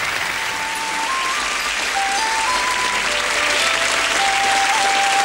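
Studio audience applauding steadily, with a simple tune of held single notes playing over the clapping.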